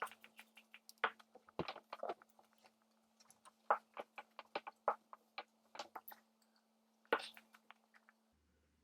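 A person chewing McDonald's chicken nuggets close to the microphone: a run of irregular wet mouth clicks and smacks.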